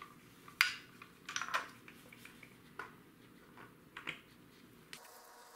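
Light metal clicks and clinks as the oil filter cover and its small bolts are handled and fitted on a four-stroke dirt bike engine: a few separate knocks, the sharpest about half a second in.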